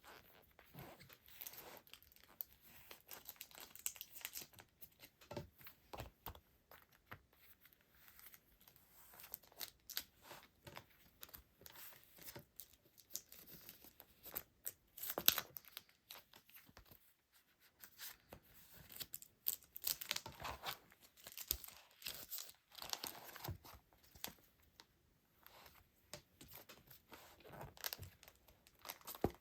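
Plastic packaging being handled up close: irregular crinkling and rustling with small clicks and taps, a little louder about halfway through.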